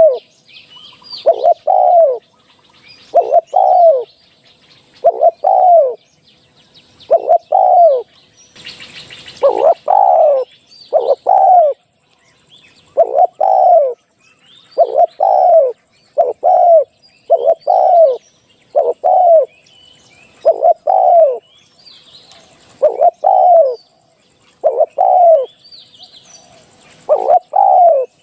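Spotted dove cooing: low coos, mostly in pairs, repeated every second or two, used as a live decoy call. Fainter high chirps of small birds sound in between, and a short rustling noise comes about nine seconds in.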